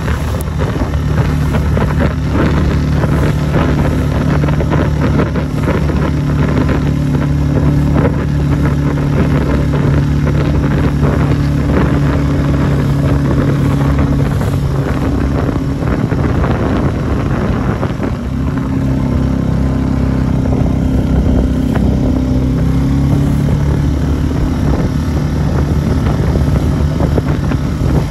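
Small open boat's outboard motor running fast and steady, its note dipping for a few seconds about halfway and then picking up again, with water splashing against the hull and wind on the microphone.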